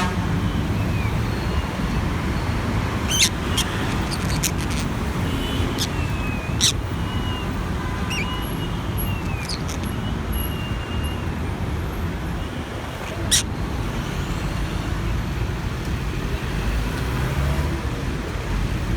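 Steady road-traffic rumble, with a green-cheeked conure giving a few short, sharp calls and some faint chirps; the loudest call comes about two-thirds of the way in.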